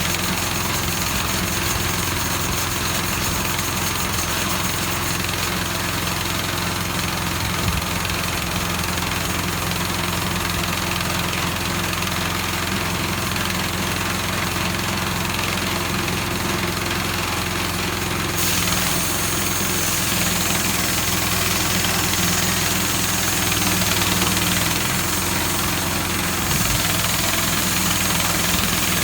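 Small gas engine of a portable band sawmill running steadily throughout, with a shift in its sound about eighteen seconds in and again near the end. The mill is making its first cut through a log, and the engine bogs down at times under the load.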